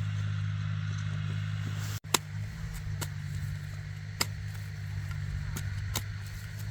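A small engine running steadily as a low drone, with several sharp clicks or knocks from about two seconds in.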